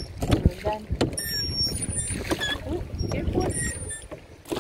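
Small rowing boat under way on a river: wind rumbling on the microphone over splashing water, with a few sharp knocks near the start and about a second in.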